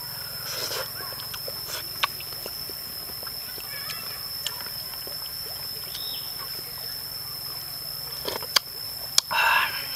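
A person eating soup: a few sharp clicks, then a short slurp of broth drunk from the bowl near the end, over a steady high-pitched tone.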